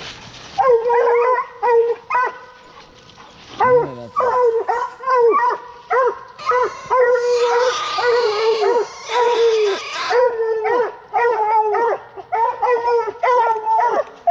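Coonhounds barking treed: a steady run of short, repeated barks, several a second, the sign that they have a raccoon up the tree. A rustling noise joins in from about six to ten seconds in.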